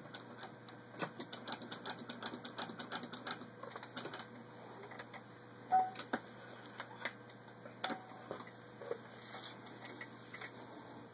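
A 1921 Singer Model 66 sewing machine stitching through six layers of denim as its handwheel is spun by hand: a quick run of regular mechanical clicks. After about four seconds the clicks thin out into scattered clicks and a couple of short squeaks as the work is handled.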